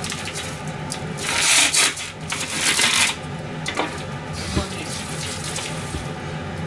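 Kitchen tap running into a stainless steel sink in two short gushes, each well under a second, about a second apart, followed by a softer run of water.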